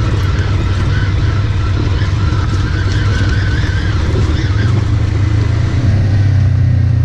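Polaris RZR side-by-side's engine running at a steady low drone, without revving.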